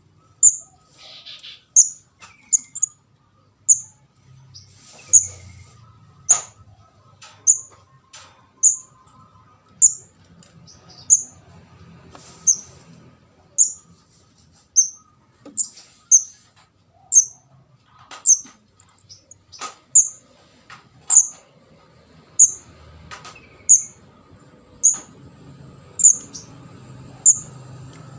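Young scarlet-headed flowerpecker (kemade jawa, 'ndas abang') calling: short, very high, sharp chirps repeated steadily about once a second, now and then doubled. This is a fledgling's call used as a lure to draw in birds of its kind.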